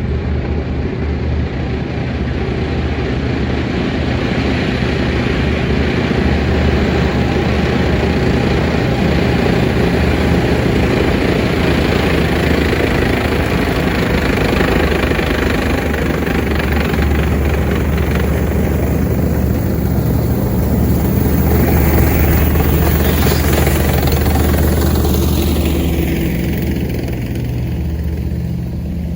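Tank engine running close by with a steady low drone; over roughly the last ten seconds its pitch sweeps up and down as the tank moves past.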